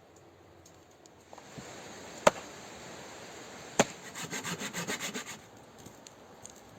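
Two sharp knocks, then about a second of fast, rhythmic scraping strokes.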